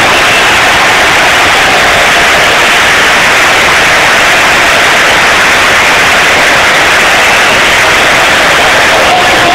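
Large stadium crowd cheering and clapping in a steady, unbroken wall of noise, so loud that the recording sounds harsh and overloaded.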